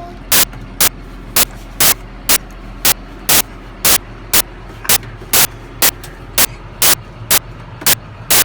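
A steady low machine hum with a loud, sharp click repeating evenly about twice a second.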